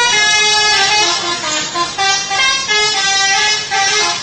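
Multi-tone "telolet" bus horn playing a short tune, its notes stepping up and down in pitch in a few phrases with brief breaks between them.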